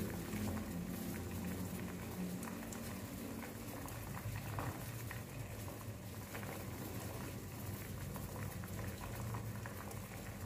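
Coconut water boiling in a hammered aluminium saucepan on a gas burner: a steady bubbling with scattered small pops.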